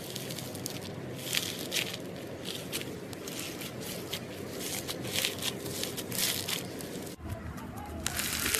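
Slime being squeezed and pressed by hand, making many irregular crackling pops and squishes. The sound changes abruptly about seven seconds in.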